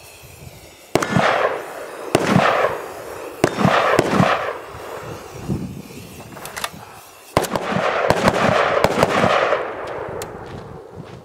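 Aerosol spray-paint can hissing in bursts: four short sprays, then one long spray of about two and a half seconds. The paint is covering the birdshot marks to reset the target.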